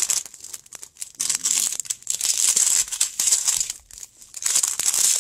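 Thin plastic drill bags from a diamond painting kit crinkling as they are handled, in several bouts with short pauses.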